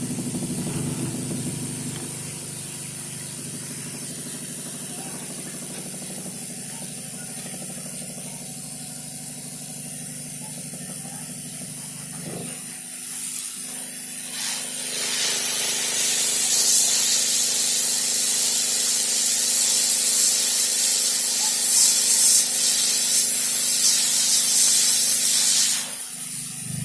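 Hot air rework gun blowing a steady hiss of hot air at about 350 °C to heat and seat a phone's charging connector. The hiss gets louder about halfway through and cuts off shortly before the end, with a low hum under the first half.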